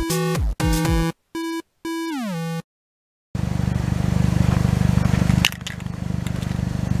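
Chiptune-style electronic music with bleeping notes, ending in a falling glide. After a brief silence, a Jeep Compass engine idles steadily, with one sharp click partway through.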